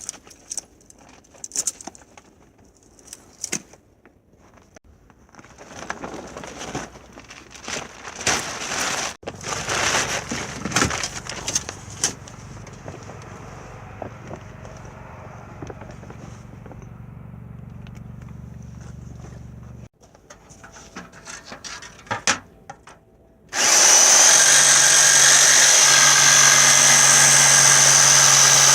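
Clatter and knocks of tools being handled, then a power tool or motor hums steadily for about ten seconds and stops. Near the end a much louder steady motor sound starts suddenly and keeps going.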